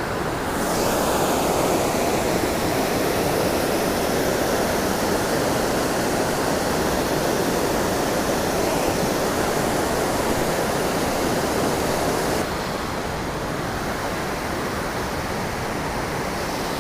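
A waterfall's rushing water, heard from right beneath the falls: a steady, dense rush that drops a little in level about twelve seconds in and then carries on.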